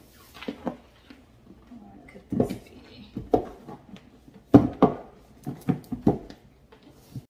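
A large cardboard presentation box being handled on a kitchen countertop: scattered knocks, taps and scrapes of the box and its lid. The loudest knocks come about two and a half seconds in and twice near the five-second mark.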